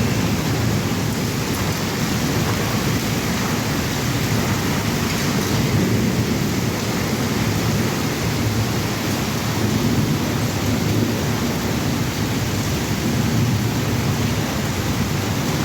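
Heavy rain pouring down steadily: a dense, even hiss and patter of a downpour with a full low rumble and no single claps standing out.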